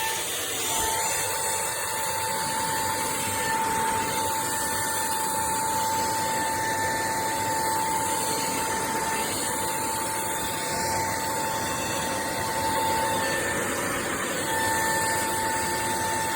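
Shark vacuum cleaner running steadily: a rushing airflow noise with a high motor whine that breaks off briefly a couple of times.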